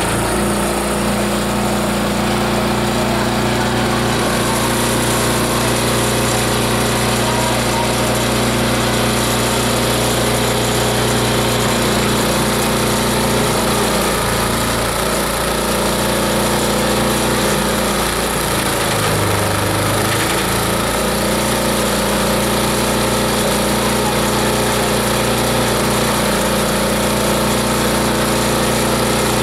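A multi-purpose chopper/shredder/grinder running steadily under load, its blades grinding material that pours out of the outlet as a dense, even mechanical din.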